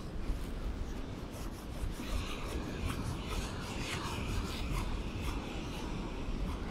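Wind rumbling on the microphone, joined from about two seconds in by a scratchy rubbing and rustling noise.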